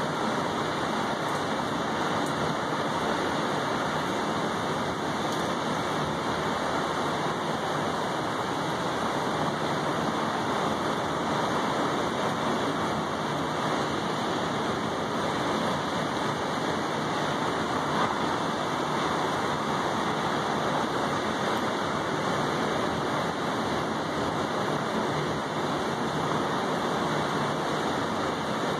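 Steady rain falling on a wet balcony table and railing, an even hiss that does not let up.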